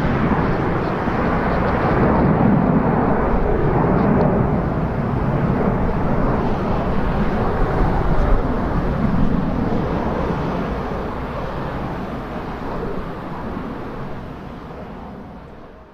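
Jet airliner's engines heard from the ground as it flies past, a dense steady rumble. It grows to its loudest about halfway through, then dies away steadily and fades out at the very end.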